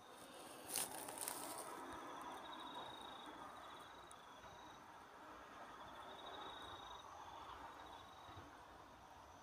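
Faint night insects trilling in short, high-pitched pulsed runs, each lasting about a second, over a soft steady hiss. A brief click comes about a second in.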